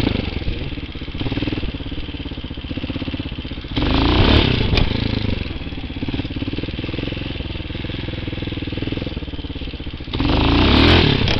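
TaoMotor TBR7 enduro dirt bike's engine under way, running at part throttle and opened up to rev hard twice: about four seconds in and again near the end.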